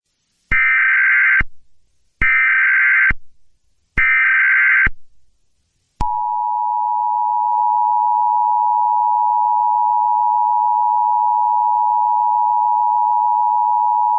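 Emergency Alert System tones. Three short bursts of SAME header data, each about a second long, are followed by the steady two-tone EAS attention signal for about eight seconds, which cuts off near the end. The tones announce the emergency alert message that follows.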